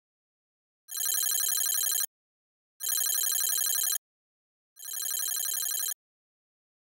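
Skip Hop musical owl toy phone ringing three times with a trilling telephone-bell ring. Each ring lasts a little over a second, with short pauses between.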